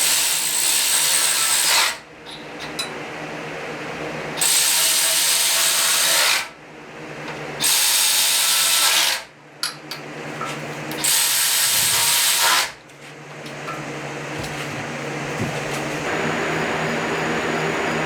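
Power tool run in four bursts of about two seconds each, with a steady low hum between the bursts.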